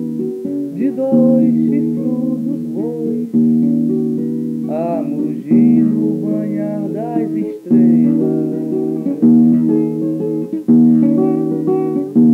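Guitar music from a 1981 cassette recording: full chords struck about every two seconds, with a wavering melody line over them.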